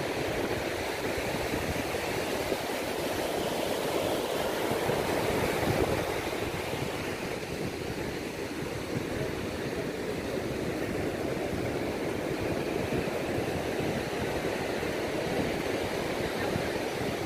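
Beach ambience: a steady rush of sea surf and wind, swelling and easing slowly.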